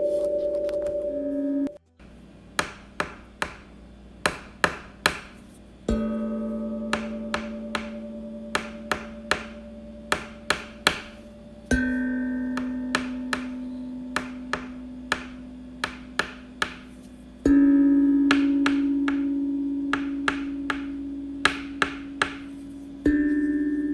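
A ringing, chime-like tone struck about every six seconds, each time at a different pitch and slowly fading, with clusters of sharp wood-block-like taps in between.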